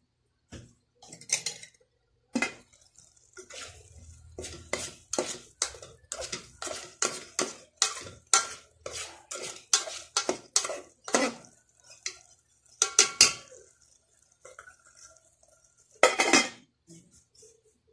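Metal spoon stirring corned beef and diced potatoes in a rice cooker's metal pot, clinking and scraping against the pot about twice a second. Near the end the metal lid clatters back onto the pot.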